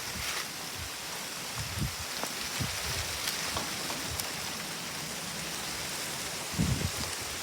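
Strong wind blowing through trees: a steady hiss of rustling leaves, with gusts buffeting the microphone in low rumbles, strongest near the end.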